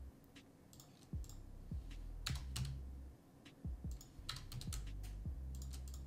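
Computer keyboard keys and mouse buttons clicking at uneven intervals, a dozen or so sharp clicks, over a low hum that drops out now and then.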